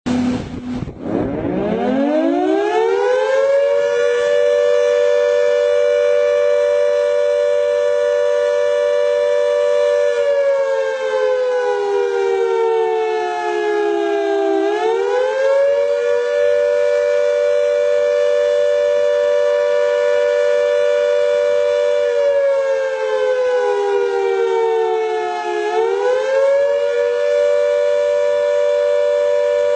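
Air-raid siren winding up from low pitch to a steady wail of several tones sounding together. Twice it sags slowly in pitch for about four seconds, then swings quickly back up and holds.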